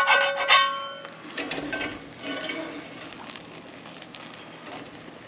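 Skillet and metal spatula clank together, leaving a bright metallic ring that fades out about a second in. Then come a few light knocks and rattles as the skillet is set down on the grill's wire grate.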